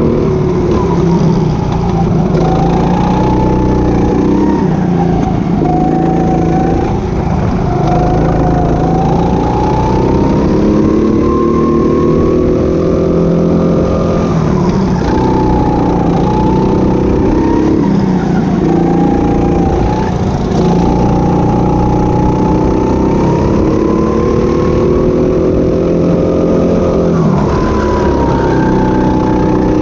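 Go-kart engine running hard under throttle, its pitch climbing for several seconds then dropping sharply, about four times, as the kart accelerates down the straights and slows for the corners.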